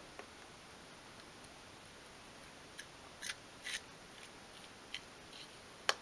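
A few faint, sharp clicks and short scratchy scrapes of small wooden pieces and a wooden cocktail stick being handled on a cutting mat, spaced out with quiet gaps and coming closer together in the second half.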